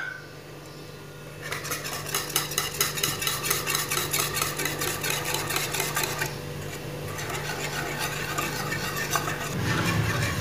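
Wire balloon whisk beating gram flour into lassi in a metal bowl: rapid, even strokes of the wires clicking and scraping against the bowl. It starts about a second and a half in, with a short lull past the middle.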